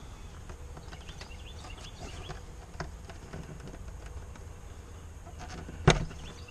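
Faint clicks of hands working a fitting loose on an outboard engine's air filter assembly, over a steady low hum, then one sharp snap near the end as the part pops off.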